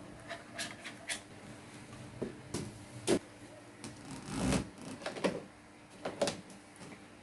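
Plastic vacuum-cleaner accessories (tubes and nozzles) being handled and clipped into the storage on the body of a Bosch UniversalVac 15 wet/dry vacuum: irregular plastic clicks and knocks, with a longer scraping knock about four and a half seconds in.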